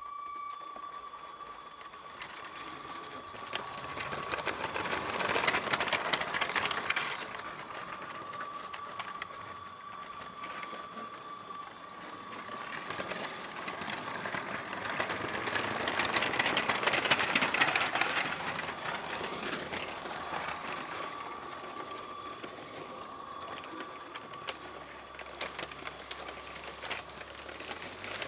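Motorized Lego trains running on plastic track: a rapid clicking clatter of wheels and running gear that swells twice as trains pass close by, loudest about a quarter and about three fifths of the way through. Under it runs a steady thin whine.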